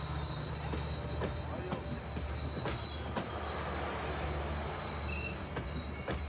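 El Chepe passenger train's cars rolling slowly past along the platform, with a steady high wheel squeal over a low rumble and scattered knocks from the running gear.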